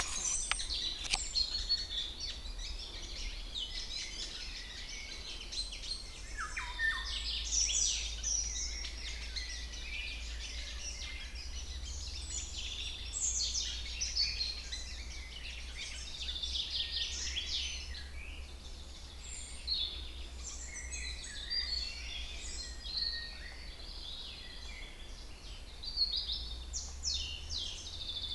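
Many songbirds singing at once, a dense chorus of overlapping chirps and trills, over a low steady rumble.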